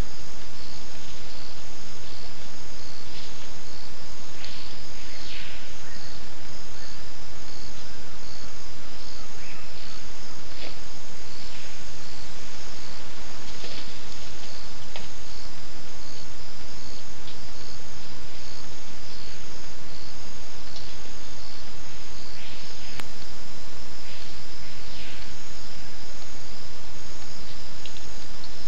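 Rainforest insect chorus: a steady, high, pulsing trill over a loud even hiss. A few high whistles fall steeply in pitch, a couple of times.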